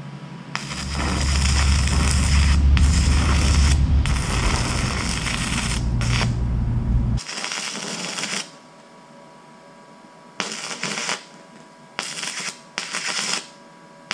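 Stick-welding arc from a 3/32-inch E6011 rod on a Weldpro 155 GD welder, crackling steadily for about seven and a half seconds with a deep rumble under it for most of that run, then stopping. Three short bursts of crackle follow, each under a second long.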